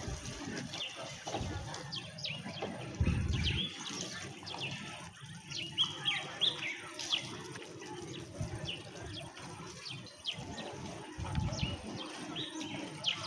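Small birds chirping: many short, quick, high-pitched chirps scattered irregularly, with a few low rumbles underneath.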